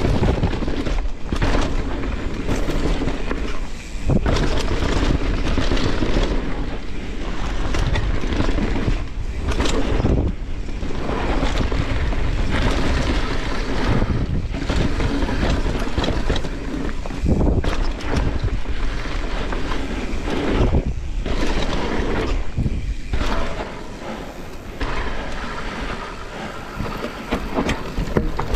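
Mountain bike descending a dirt trail at speed: steady wind buffeting the microphone over the rush of knobby tyres on dirt, with frequent knocks and rattles from the bike as it hits roots and bumps.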